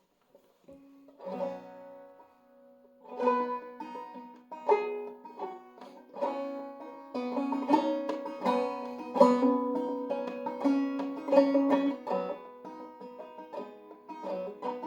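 Five-string banjo played clawhammer style in eCGCD tuning, the opening of a tune: a few sparse plucked notes at first, then from about three seconds in a steady, even rhythm of brushed and plucked notes that grows fuller after about seven seconds.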